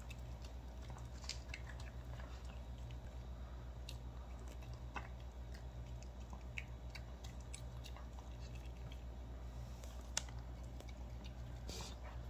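Small long-haired dog eating boneless chicken from a stainless steel bowl: irregular wet chewing and smacking clicks, with one sharper click about ten seconds in. A steady low hum runs underneath.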